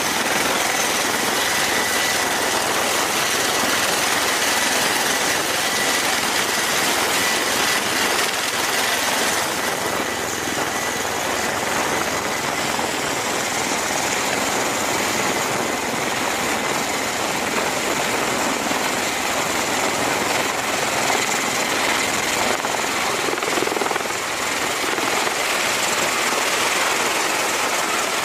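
CMV-22B Osprey tiltrotor running at high power on its twin turboshaft engines and proprotors as it lifts off from a carrier deck: a steady loud rushing noise with a thin high whine that fades about ten seconds in.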